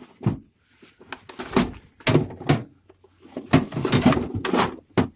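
Tools and other loose items clattering and knocking as a toolbox is rummaged through and emptied, a run of irregular clanks and knocks with a busy cluster near the end.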